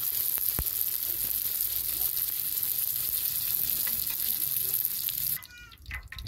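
Stuffed dough pastries sizzling as they fry in hot oil in a wide iron pan. The loud, even sizzle cuts off suddenly about five seconds in, leaving quieter, scattered sounds.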